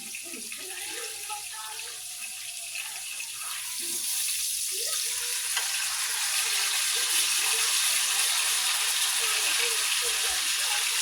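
Ribeye steak sizzling in a hot frying pan, a steady hiss that grows louder about four seconds in.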